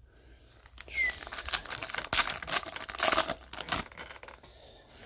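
Foil wrapper of a baseball card pack being torn open and crinkled: a dense crackling, tearing noise that starts about a second in and lasts about three seconds.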